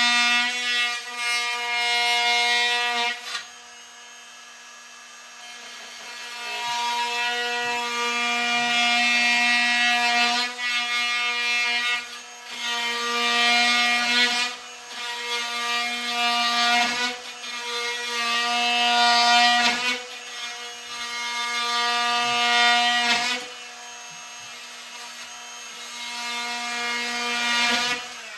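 Handheld power tool cutting a notch in wood. The motor runs with a steady whine throughout, and the cut grows louder in repeated passes of a few seconds each before the tool stops at the end.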